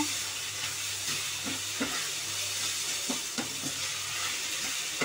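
Grated raw papaya sizzling as it fries in ghee in a non-stick kadhai, stirred with a wooden spatula, with a few light knocks and scrapes of the spatula against the pan.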